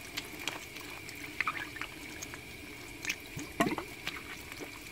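Water trickling and dripping as rusty steel bolts are rinsed under a garden hose on brick pavers, with light clicks of the bolts being handled and a louder clink about three and a half seconds in.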